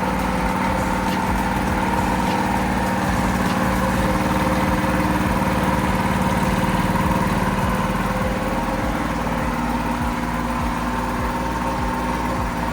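Go-kart's GX200 single-cylinder engine running at a steady speed, with no revving.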